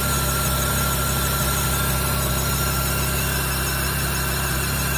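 Fiat Palio 8-valve engine idling, with a steady high whine and growl from its water pump, a sign of a worn water pump bearing.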